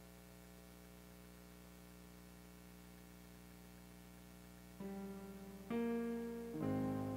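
Faint steady electrical hum, then about five seconds in a digital piano begins to play, with a single note and then fuller chords struck roughly once a second.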